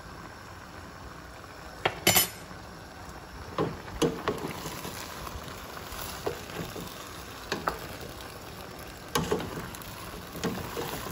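Chicken breast strips and vegetables stirred in a pot with a plastic spoon, the spoon knocking against the pot every second or two, over a steady sizzle of the food cooking.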